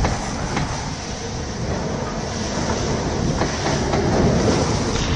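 Heavy, steady rushing noise of wind and breaking water around a racing sailboat driving through rough seas, deep and rumbling, with a few faint knocks.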